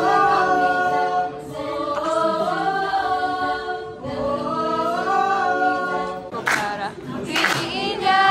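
A choir singing a cappella, holding sustained chords in long phrases. From about six and a half seconds in, loud high shrieks and cheers from the audience break in over the singing.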